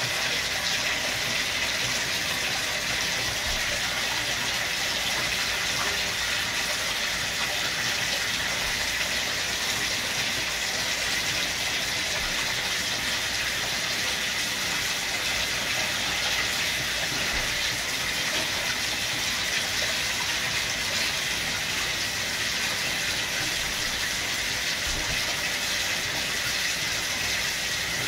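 Tap water running steadily into a bathtub, an even rushing hiss that neither starts nor stops.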